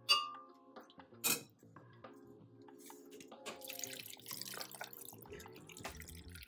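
A metal spoon clinks twice against a stainless steel bowl, then boiled beetroot and its cooking liquid pour and splash into a blender jar, with soft thuds as the pieces drop in near the end. Faint background music underneath.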